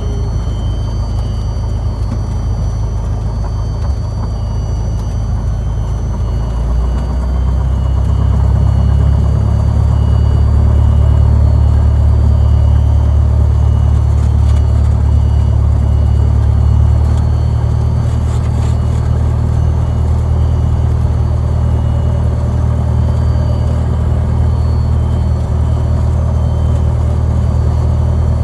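Steady low drone of a small single-engine propeller airplane, getting louder about eight seconds in and then holding steady.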